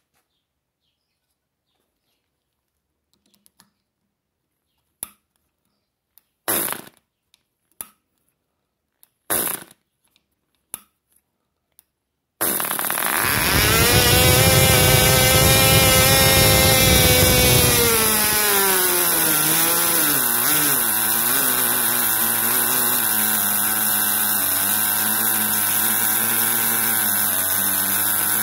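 Small Cox model glow engine being restarted: a few short pops and sputters, then it catches about twelve seconds in and runs at high speed with a steady high pitch. After about five seconds its pitch drops and wavers as it is throttled down with the exhaust throttle ring, settling into a lower, uneven run.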